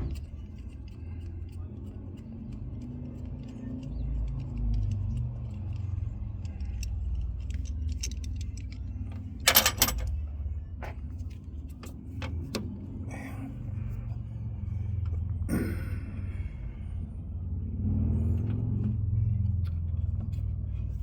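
Metal clinks and clatter of hand tools and fasteners being handled during work on a van's coolant reservoir, the loudest clatter about halfway through, over a steady low rumble.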